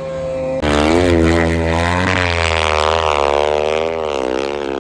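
Snow bike engine revving hard under load in deep powder. It gets suddenly louder about half a second in, and its pitch keeps rising and falling as the throttle is worked.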